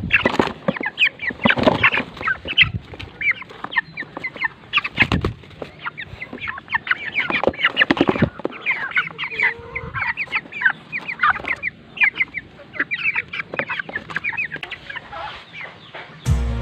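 A flock of broiler chickens calling: many short, high chirps and clucks overlap without a break, with a few sharp knocks among them.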